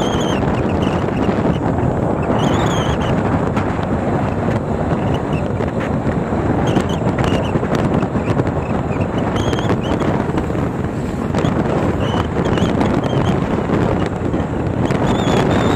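Wind buffeting the microphone of a camera riding on a moving bike, a loud, steady rush. Faint short high chirps come through a few times.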